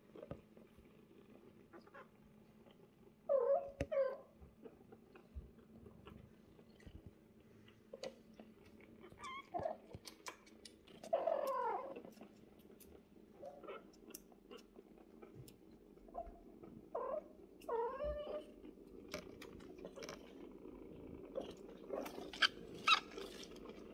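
Kittens mewing: short high mews in small groups, a pair about three seconds in, a longer one near the middle and another pair later on, over a low steady background. A few sharp clicks near the end.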